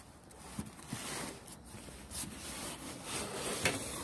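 Cardboard shipping box being turned and slid across a patio table, rubbing and scraping, with a few light knocks, the sharpest near the end.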